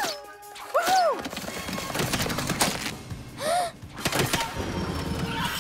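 Cartoon action soundtrack: background music with several thuds and knocks, and a couple of short squeaky cries that rise and fall in pitch.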